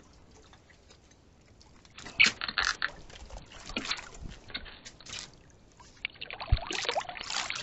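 Water splashing and sloshing at the side of a boat as a sailfish thrashes at the surface alongside, in irregular splashes and knocks starting about two seconds in and thickening near the end.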